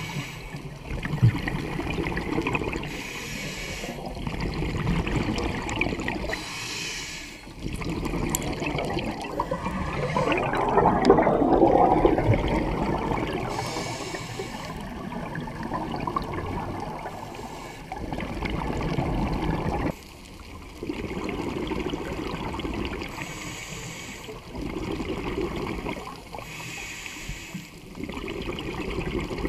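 Scuba regulator breathing heard underwater: stretches of hissing inhalation alternating with bursts of exhaled bubbles gurgling past, loudest about ten to twelve seconds in.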